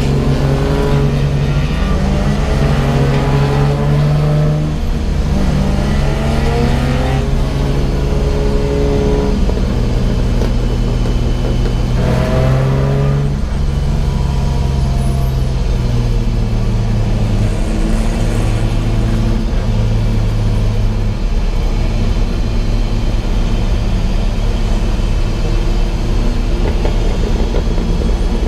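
Race car engine under hard acceleration, its pitch climbing and dropping back at several gear changes over the first half, then running at a steady high speed.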